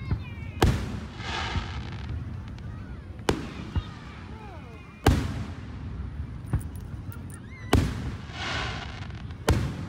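Aerial firework shells bursting overhead: five loud booms spaced about two to three seconds apart, each fading out with a brief rumble.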